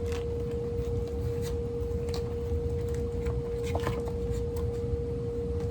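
Steady hum of an air conditioner running, a low rumble with one constant mid-pitched tone, with a few faint clicks on top.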